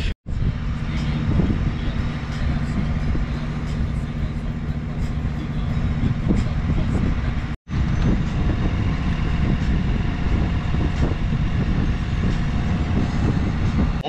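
A sailboat's inboard diesel engine runs steadily under way, a low, even drone. It cuts off briefly twice.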